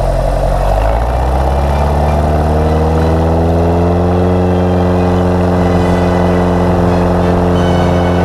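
Aerobatic plane's piston engine running on the ground, rising in pitch over the first few seconds and then holding at a steady higher speed.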